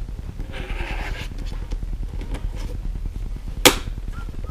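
Handling noises: a short rustle about half a second in and a single sharp knock a little before the end, over a steady low rumble.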